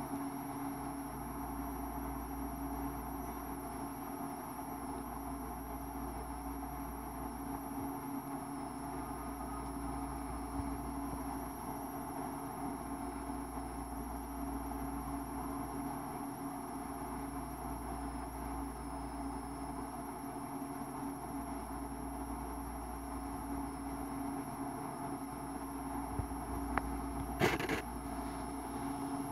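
Steady mechanical hum with a high, thin whine above it and a low rumble beneath; two short clicks near the end.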